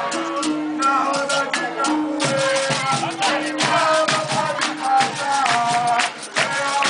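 Capoeira music: a shaken rattle in a steady rhythm over drums and other percussion, with pitched melodic lines.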